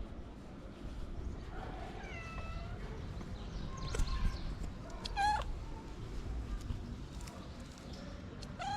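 A cat meowing in short separate calls, about four over several seconds. The call a little past the middle is higher and sharper than the others.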